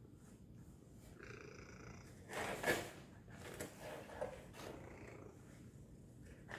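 Domestic tabby cat purring steadily, with a louder rustle about two and a half seconds in and a few smaller ones after it as the cat shifts about in a cardboard box.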